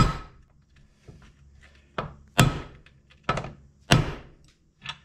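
Half a dozen hammer blows, irregularly spaced, on a steel socket set against a stuck part of an RV waste-tank valve. Each strike is a sharp metallic knock with a brief ring, struck to break the seized part loose.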